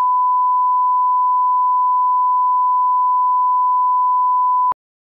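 A steady pure electronic test tone, like the 1 kHz line-up tone placed at the head of a video master, held at one pitch and level, then cutting off abruptly near the end into dead silence.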